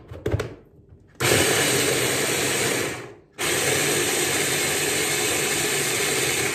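Braun hand blender's motor unit running on its chopper attachment, mincing an onion: a few light clicks as the motor is fitted onto the chopper, then the motor runs for about two seconds, stops briefly, and runs again for about three seconds.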